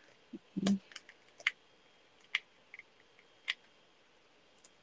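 Hands handling small paper-crafting pieces on a desk: a soft knock about half a second in, then a scattering of small, sharp clicks and ticks.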